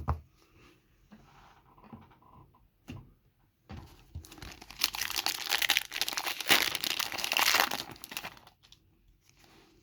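Foil wrapper of an Upper Deck hockey card pack being torn open and crinkled. After a few seconds of faint handling, there are about four seconds of loud, dense crackling.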